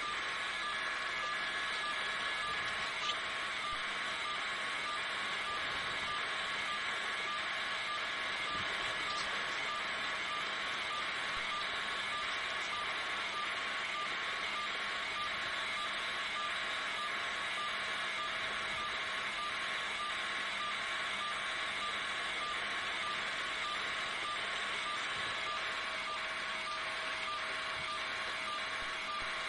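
Steady helicopter engine and rotor drone with a fast, even pulsing, heard with little bass.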